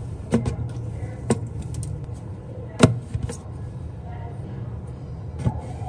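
Cardboard milk cartons set down into plastic storage baskets on a shelf: a handful of knocks and taps, the loudest about three seconds in, over a low steady hum.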